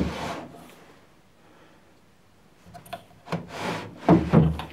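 Wooden table drawer being handled and slid, wood rubbing on wood: one short scrape at the start, then after a pause a few light clicks and two longer scrapes near the end.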